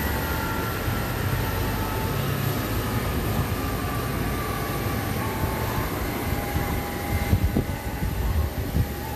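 Jet engines of a parked Boeing 737 winding down after arrival: several whining tones slowly falling in pitch over a steady roar. Uneven low buffeting near the end.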